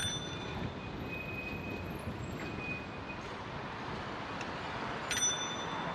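Steady rumble of riding a bicycle through night city traffic, passing cars and a scooter. Two short metallic pings ring out, one at the start and one about five seconds later.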